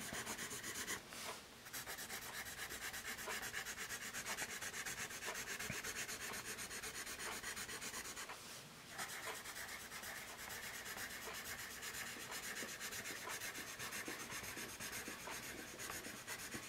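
Paper Mate Mirado Black Warrior #2/HB pencil lead rubbing across graph paper in continuous cursive loops: a steady, scratchy rasp of quick repeated strokes, broken twice by brief pauses, about a second in and about halfway through, as the pencil lifts to start a new row. The lead writes not super smooth, with a slightly scratchy feel.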